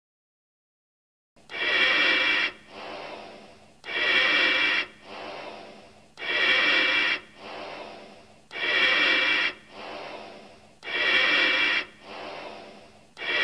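Breathing through a gas mask, starting after about a second and a half of silence. It comes as a slow, even cycle of about one breath every two and a half seconds. Each breath is a loud, hissing pass through the mask with a ringing edge, followed by a softer one that fades away.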